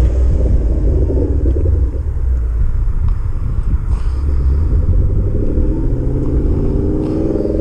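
Motor vehicle engine running under a steady low rumble, its note rising near the end.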